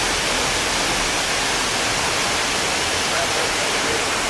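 Steady rushing noise, even and hiss-like, with faint voices underneath.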